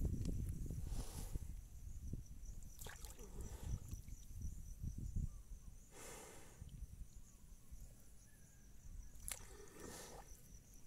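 Water buffalo wallowing with its muzzle at the water's surface, breathing out in a breathy rush about every three seconds, four times in all, over a low rumbling noise that fades after the first few seconds. A cricket trills faintly and steadily behind it.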